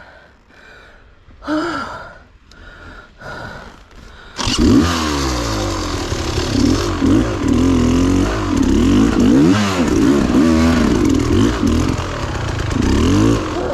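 Quieter for the first few seconds, then a dirt bike engine comes in suddenly and loud about four seconds in, revving up and down over and over as it is ridden.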